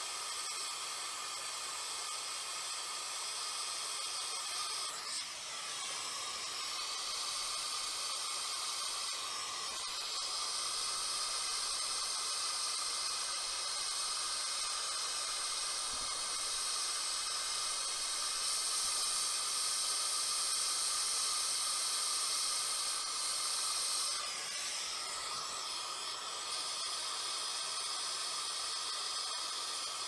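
Acetylene torch flame hissing steadily as it heats a copper refrigerant-line joint for brazing. The hiss shifts in tone a few times.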